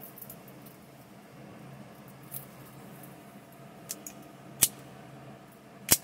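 Sharp metallic clicks from a vintage Italian stiletto switchblade being handled: a few light ticks, then two loud snaps, one about four and a half seconds in and one near the end.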